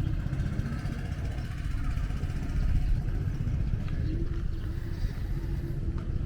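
Small engine running steadily, a constant low rumble with a faint steady hum above it.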